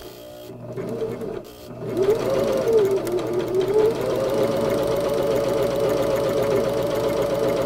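Domestic sewing machine fitted with a walking foot, stitching through handwoven cloth. It starts with a few slow, uneven stitches, then speeds up with a wavering hum about two seconds in, and settles into steady fast stitching.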